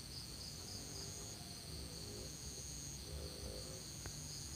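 Insects chirping steadily: a high pulsing chirp about four times a second, with a higher trill that starts and stops every second or so.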